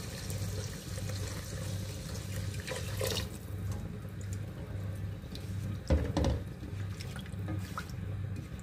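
Water poured into a metal pot of spiced rice, splashing and gurgling, with the pouring stopping about three seconds in. Then a slotted plastic spoon stirs the liquid, with a clunk against the pot about six seconds in, over a low steady hum.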